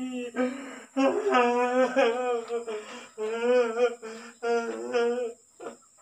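A voice humming a wavering tune in drawn-out notes with short breaks between them, stopping about five and a half seconds in.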